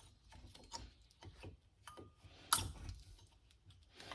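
Light metallic clicks and scrapes of a brake pad being worked into its caliper bracket, metal on metal, with one sharper clack about two and a half seconds in.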